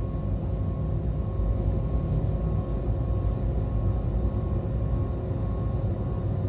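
Steady low rumble and hum inside the cab of a Siemens Vectron electric locomotive, with a faint steady tone over it.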